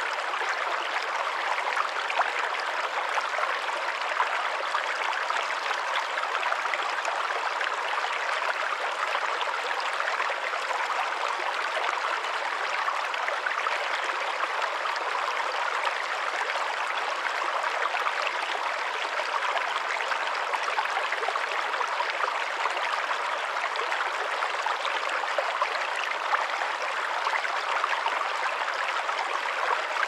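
A small brook running over stones, a steady rush and trickle of water that stays the same throughout.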